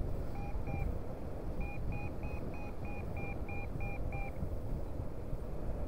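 Paragliding variometer beeping in short beeps: a couple near the start, then a steady run of about three a second that stops a little past the middle. This is its climb tone, signalling that the glider is rising in lift. Wind rushes on the microphone underneath.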